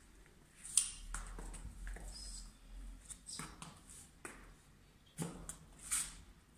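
Stiletto heels of strappy high-heeled sandals clicking on a tiled floor: a string of sharp, irregularly spaced steps.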